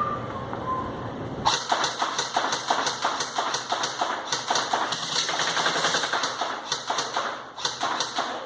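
Airsoft M4 rifle firing, a rapid run of sharp clicks and snaps that starts about a second and a half in and keeps going.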